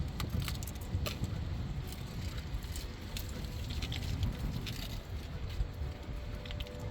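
Light, irregular metallic clicks and small rattles of hand work around an engine oil pan's drain plug as the draining finishes, over a steady low rumble.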